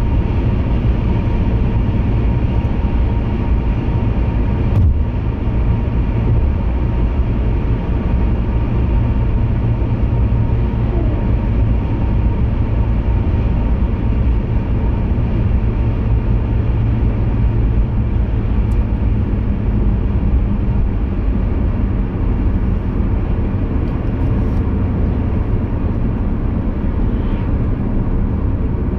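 Steady low rumble of a car driving at road speed, heard inside the cabin: engine and tyre noise with a faint steady whine above it. A small click about five seconds in.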